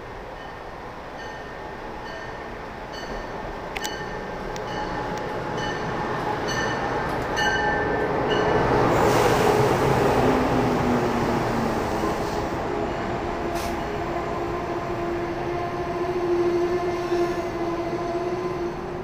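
Amtrak Acela Express train running past on the near track. It grows louder to a peak as the power car goes by about nine or ten seconds in, after an earlier run of regular clicks, then the coaches rush past with a steady tone.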